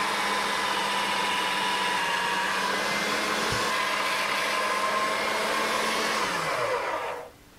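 Electric pasta machine's motor running steadily, driving the rollers as a sheet of dough passes through. Near the end it is switched off and its whine falls away as it spins down.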